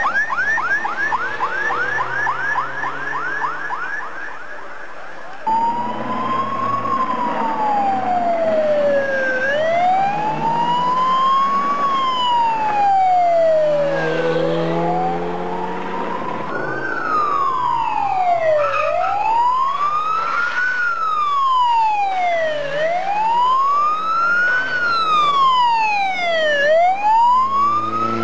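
Vehicle siren on rally course cars. For the first few seconds it gives a fast yelp, and after a break it gives a slow wail that rises and falls about every four seconds.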